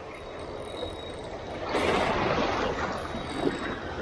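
Sea water washing and splashing over a shallow rocky shore, with a louder surge of water about two seconds in.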